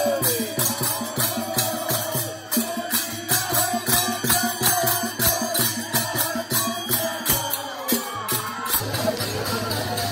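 Music with a steady percussion beat under a melody line, in the manner of Indian folk or devotional music.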